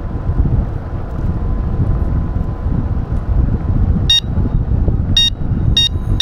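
Steady low rumble of wind on the microphone from a moving bicycle. About four seconds in, five short high-pitched beeps at uneven spacing cut through it.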